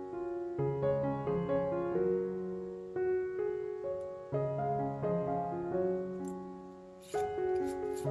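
Soft, slow piano background music: sustained chords that change every couple of seconds, each fading before the next is struck.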